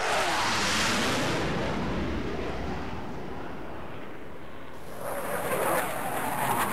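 Electronic ambient soundscape of whooshing noise. It swells just after the start, with a falling sweep, dips in the middle, then swells again near the end.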